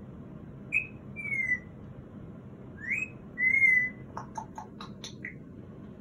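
Congo African grey parrot whistling twice, each time a short rising note followed by a longer, slightly falling one. About four seconds in comes a quick run of clicks and short chirps.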